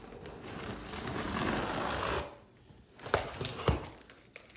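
Scissors blade drawn along the packing tape of a cardboard box, slitting it open with a rasping scrape for about two seconds. A few sharp clicks and knocks of scissors and cardboard follow.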